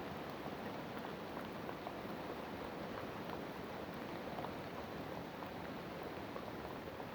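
Steady rain falling, a continuous even hiss with scattered light drop ticks.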